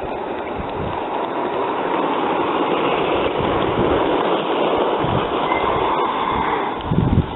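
Gauge 3 model train, a GWR small Prairie tank engine with its coaches, rolling along the garden track, its wheels making a steady rushing rumble on the rails. It grows louder as the train passes close by and eases off near the end, with a few low thumps.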